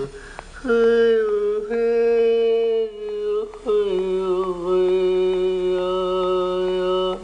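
A voice chanting long, steady sustained notes with no clear words. There are about three held tones, each sliding down slightly as it starts, with the last held for several seconds, and short breaths between them.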